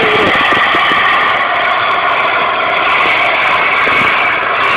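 Heavy diesel engine of a tractor wading deep through a river, running steadily under load while black exhaust smoke pours out.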